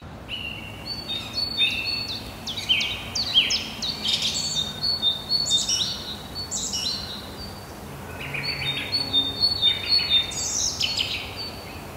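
Several small birds chirping and calling over one another in quick downward-sweeping notes, over a faint steady rush from the flood-swollen creek.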